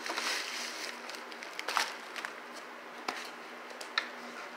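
Paper mailer envelope rustling and crinkling as a small cardboard box is slid out of it, with a few light clicks and taps of the box and a small tin being handled on the table.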